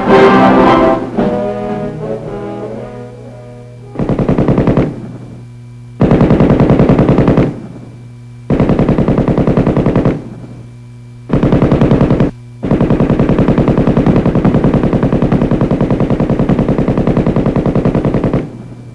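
Orchestral brass music fades out over the first few seconds. Then an M60 7.62 mm machine gun fires five bursts of rapid automatic fire, the last about six seconds long.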